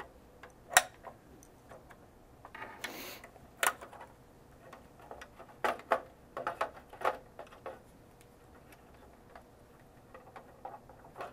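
Scattered plastic clicks and taps as the battery cover door of a GSM alarm module's plastic housing is handled and fitted back on, with a brief rustle about three seconds in and a run of clicks around six to seven seconds.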